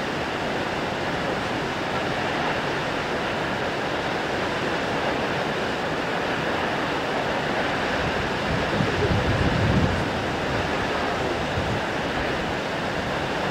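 Shōmyō Falls, a very tall waterfall, giving a steady, dense rushing of falling water, with a brief louder low rush about nine seconds in.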